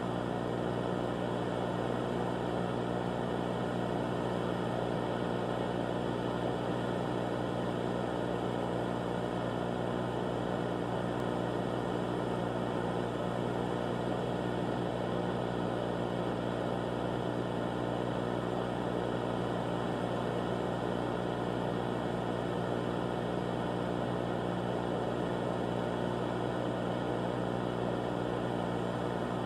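Steady droning hum with a layer of hiss that does not change: the background drone of a mock emergency alert broadcast.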